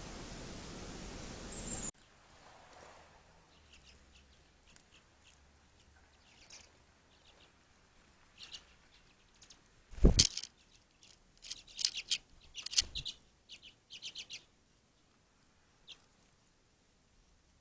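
Small songbirds at a feeder giving short, high chirps, scattered at first and bunched into quick runs near the end. A loud knock sounds about ten seconds in and a smaller one a few seconds later. A steady hiss at the start cuts off suddenly about two seconds in.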